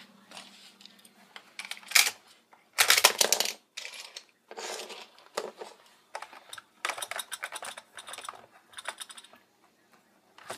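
Hard plastic parts of a Chuck the Dump Truck toy playset clicking and clattering as it is handled, in several short bursts of rapid rattling clicks, the loudest about three seconds in.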